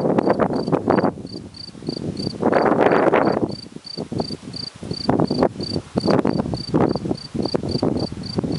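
A cricket chirping steadily, about three to four short high chirps a second, under louder irregular gusts of wind buffeting the microphone.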